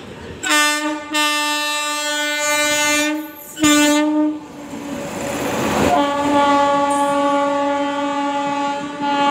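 Indian Railways locomotive horn sounding as the train passes close by: a long blast, a short one, then another long blast, with the rumble and clatter of the wheels on the rails in the gap between.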